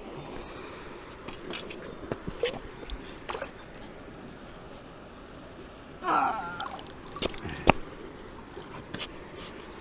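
Steady rush of flowing river water under scattered clicks and knocks of footsteps in sandals on streamside rocks. A brief louder rasp about six seconds in, and a sharp click shortly after that is the loudest moment.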